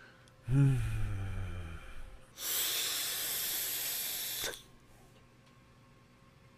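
A short low vocal hum falling in pitch, then about two seconds of steady hiss as a long draw is pulled through an Innokin Axiom sub-ohm tank with a 0.5 ohm coil at 35 watts, air rushing through the tank's airflow. The hiss stops suddenly about four and a half seconds in.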